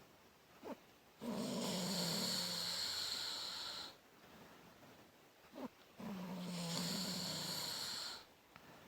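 A sleeping woman snoring: two long snoring in-breaths about five seconds apart, each two to three seconds of low buzzing with a breathy hiss over it, with quiet breathing between them.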